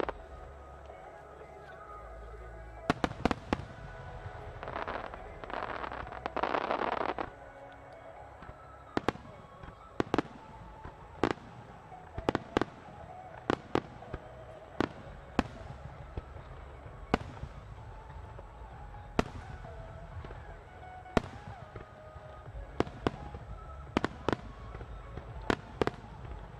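Aerial firework shells bursting in quick succession, sharp bangs roughly once a second with a dense hissing stretch about five seconds in. Music plays faintly underneath.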